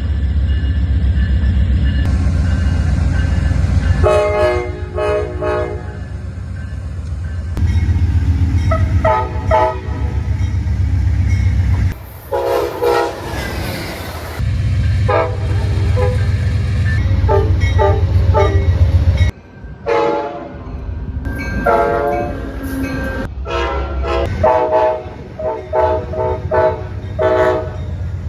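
Amtrak locomotive air horns sounding in playful runs of short blasts, with a few longer ones, over the loud rumble of passing trains. It comes as a string of separate clips with abrupt cuts between them, and the quick repeated toots are densest near the end.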